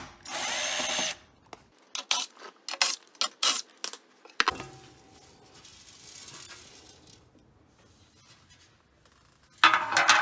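Aerosol can of penetrating lubricant spraying onto rusty exhaust bolts: a hiss lasting about a second, a quick run of sharp clicks and taps, a fainter hiss, then another loud hiss near the end. The bolts are being soaked to loosen them.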